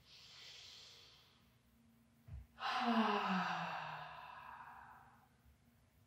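A woman's deep inhale, then a long audible sigh out through the mouth, voiced and falling in pitch as it fades. A soft low bump comes just before the sigh.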